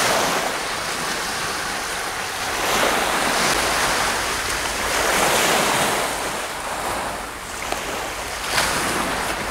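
Baltic Sea surf breaking on the beach, swelling and fading every two or three seconds, with wind rumbling on the microphone.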